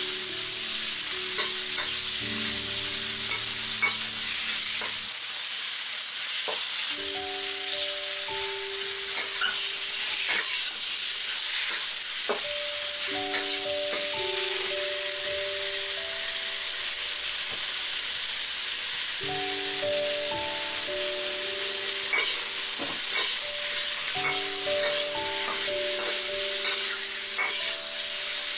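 Diced chicken with garlic and onion sizzling in hot oil in a steel wok, stirred and scraped with a metal spatula whose clicks and scrapes come through the steady sizzle.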